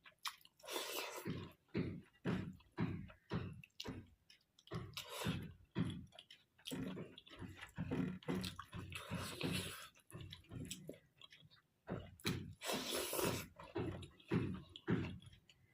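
Close-up wet chewing and lip-smacking of a person eating a meal of sisno (stinging nettle) greens, maize rice and dal, a steady run of short smacks about two a second.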